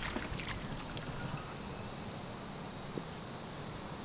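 Outdoor ambience with a steady, faint high insect buzz, and a single sharp click about a second in.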